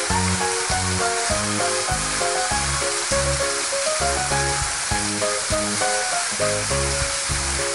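Background music with a steady bass beat and a repeating melody, over a constant hiss.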